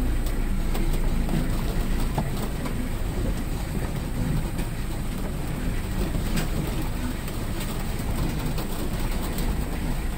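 A car driving slowly over a rutted mud track, heard from inside the cabin: a steady low engine and road rumble with the body and interior rattling and knocking over the bumps.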